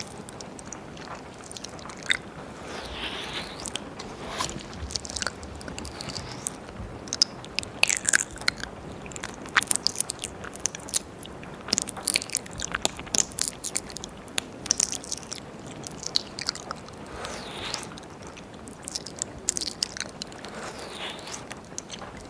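Wet mouth sounds right at a binaural dummy-head microphone's ears: tongue licking and lip smacking, making many irregular wet clicks and pops.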